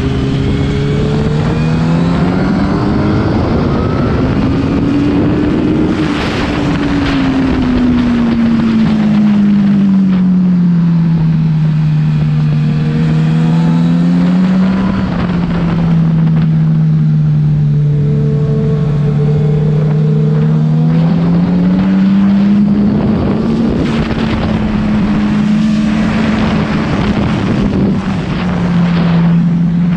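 Honda CBR1000 inline-four motorcycle engine running under way. Its pitch climbs over the first several seconds, sinks slowly and holds low through the middle, climbs again a little after twenty seconds, then dips near the end.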